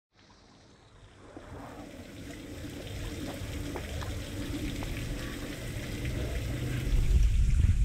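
Rinse water streaming and dripping off a pickup truck's underbody into a puddle on a concrete floor. It fades in from silence and grows louder, with small splashes throughout. A louder low rumble comes in near the end.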